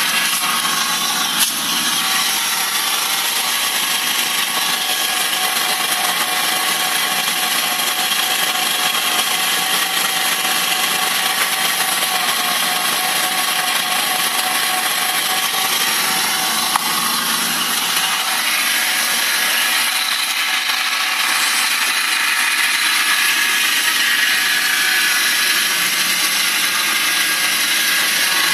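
BMW 318i's M43 four-cylinder engine running with a steady, mostly high-pitched mechanical noise and little low rumble, with a brief click about a second and a half in and another about 17 seconds in. It is a strange noise whose cause the owner does not know.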